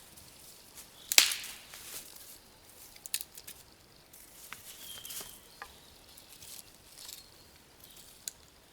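Dry sticks snapping and being handled: one sharp crack about a second in, then scattered clicks and rustles.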